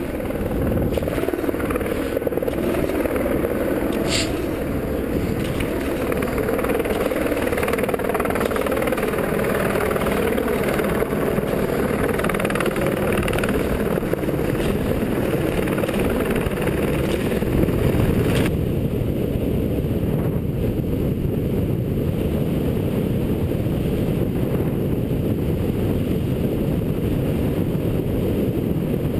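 Helicopter flying low overhead, its rotor and engine running steadily with a slowly wavering pitch. About eighteen seconds in it cuts off abruptly, leaving a low, even rush of wind on the microphone.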